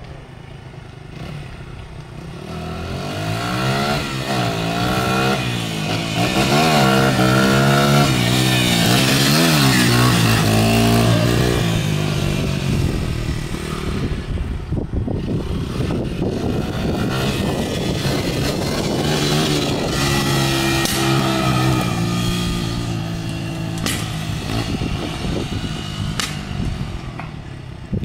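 Dirt bike engine riding along a paved street, revving up and down again and again as the rider works the throttle. It grows louder over the first few seconds and is loudest a third of the way in, then keeps running a little quieter.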